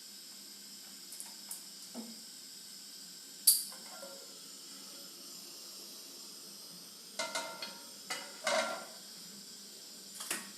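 Kitchen utensils and dishes clinking and knocking against a cooking pan: a few light clicks, one sharp knock about three and a half seconds in, and a run of clinks near the end. A steady faint hiss runs underneath.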